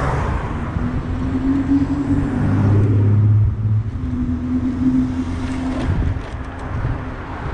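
Wind rushing over the microphone of a moving eBike, with a steady low motor hum that swells through the middle and fades after about five seconds.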